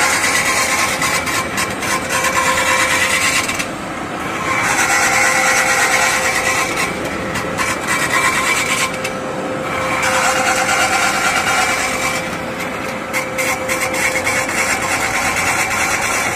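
CNC metal spinning machine forming a pot: the roller pressing sheet metal on the spinning mandrel gives a loud scraping rasp over a steady hum. The rasp fades briefly three times and comes back.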